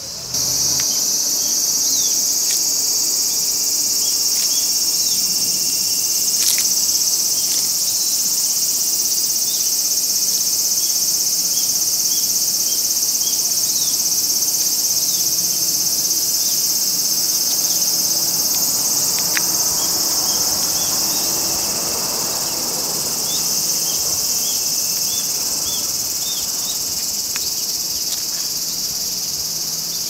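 Cicadas singing: a loud, steady, high-pitched sizzling drone that starts abruptly, with faint short chirps over it at times.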